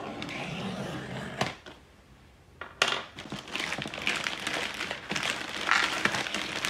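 Plastic poly mailer being slit with a small blade, with a sharp click about a second and a half in, then torn open by hand: from about three seconds in the plastic crinkles and rustles continuously as it is pulled apart.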